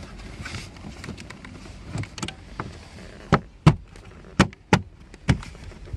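Plastic interior trim panel under the glove box of a BMW F11 being pressed and knocked into place. About seven short, sharp clicks and knocks come in the second half, the loudest two near the middle, as its clips snap home.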